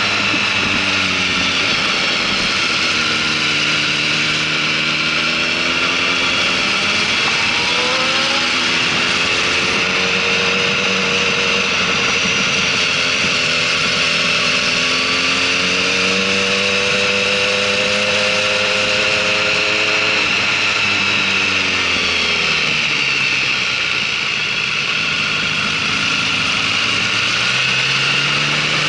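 Motorcycle engines on a track lap, heard riding close behind another bike: engine pitch rises and falls as the bikes speed up and slow, with a sharp drop in revs about two-thirds of the way in and a climb again near the end, over a steady rushing noise.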